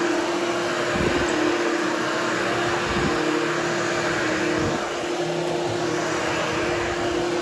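Hoover Hushtone vacuum cleaner running steadily with a constant hum and airy rush while grooming a berber carpet, with a few low thuds as it is worked back and forth.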